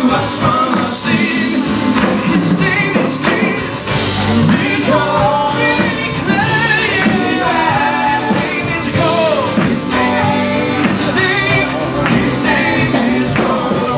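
Live gospel song performed by a band, with a sung lead vocal over guitar and a full backing group.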